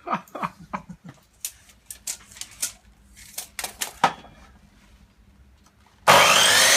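A string of sharp knocks and taps for about four seconds, then a short lull. A saw then starts cutting wood abruptly near the end, loud and steady.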